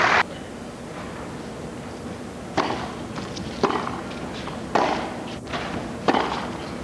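Tennis ball struck by racquets in a rally: four sharp pops about a second and a quarter apart, beginning with the serve. A brief loud rush of noise at the very start cuts off suddenly.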